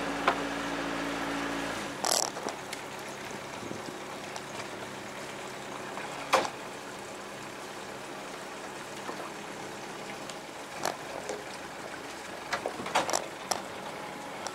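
A boat's engine running slowly with a steady low hum, which drops away about two seconds in as the boat glides on. After that a faint wash of water remains, broken by a few sharp knocks and clicks, several close together near the end.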